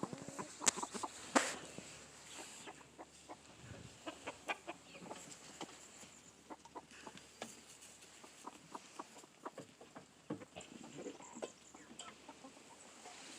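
Barnyard poultry clucking softly, with many short scattered calls and clicks.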